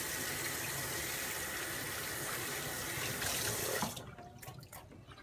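Kitchen faucet running into a stainless steel sink as hands are washed under the stream; the water shuts off about four seconds in, followed by a few faint knocks.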